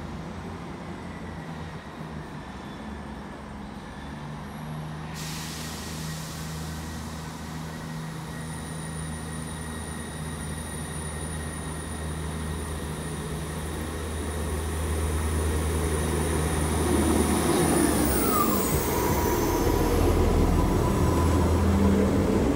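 South Western Railway diesel multiple unit approaching and running past along the platform: a steady low engine drone and wheel rumble growing louder throughout. A high whine drops in pitch near the end as the front of the train goes by.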